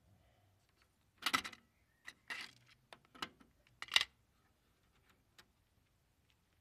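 Sharp mechanical clicks and clunks from a GC 6131 cassette deck's piano-key transport controls and eject mechanism as playback is stopped and the cassette comes out: about six clicks in the first four seconds, the loudest about four seconds in.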